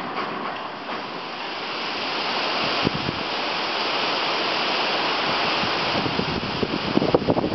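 Hurricane wind gusting through trees, a steady rushing that swells after about a second and holds strong. Near the end gusts start buffeting the microphone with choppy low thumps.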